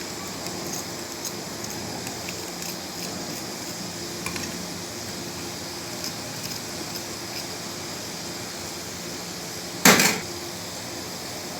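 Steady kitchen background hum and hiss with a few faint clinks, and one loud short knock or clatter about ten seconds in.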